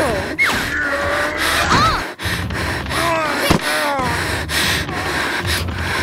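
Animated creatures' short cries and whimpers, several pitched calls sliding up and down, over a constant noisy sound-effect bed with a couple of sharp knocks.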